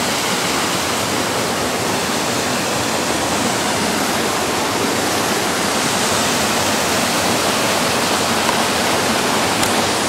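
Mountain stream rushing over rocky cascades and small waterfalls, a steady, even rush of water.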